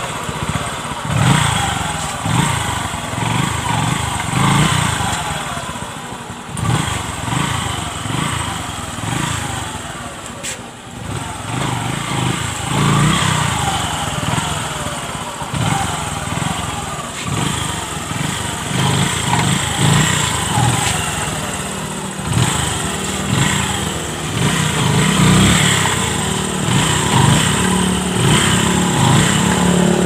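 Motorcycle engine running in first gear, its loudness swelling and easing again and again.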